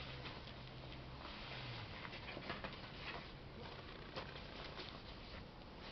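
Faint scattered light clicks and rustles of someone handling things, with a low steady hum that stops about two seconds in.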